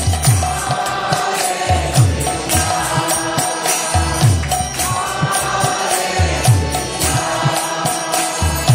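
Kirtan: a group of voices chanting a devotional mantra in unison over a drum whose deep strokes fall in pitch, with jingling percussion.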